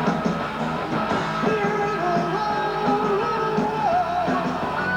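Rock band playing live between sung lines, with a held, slowly bending melody line over guitar and the rest of the band.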